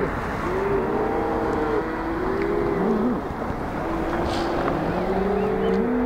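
A herd of cattle mooing, many drawn-out calls overlapping one another, over the steady noise of a car passing on the highway.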